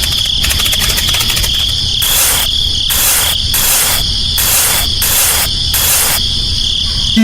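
Insects, crickets by the sound, chirring in a steady high tone. From about two seconds in to about six seconds, a run of hissing pulses comes roughly twice a second, over a low background rumble.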